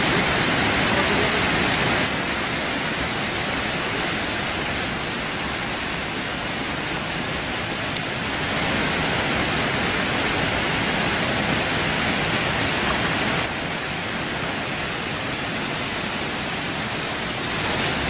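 Waterfall and cascading stream rushing: a steady, dense noise of falling water, its level stepping abruptly up or down a few times.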